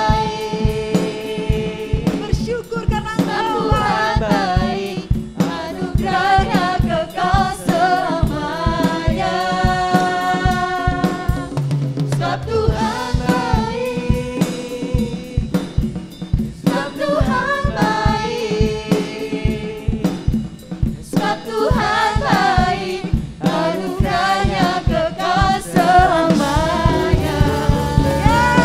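Worship band music with voices singing a melody over a steady drum-kit beat.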